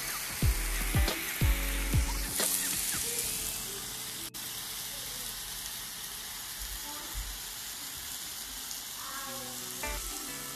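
Marinated chicken skewers sizzling on a hot electric grill plate, a steady hiss. Several sharp clicks sound over the sizzle in the first couple of seconds.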